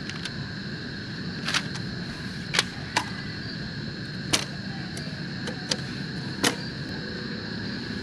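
Steady high chirring of night insects, broken by about half a dozen sharp clicks and taps of camping gear being handled.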